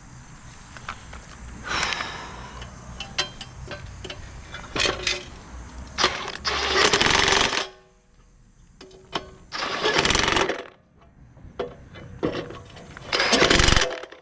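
A power tool running in four short bursts of about a second each, with sharp metallic clicks and clanks between them, as work goes on on a mower's blower fan.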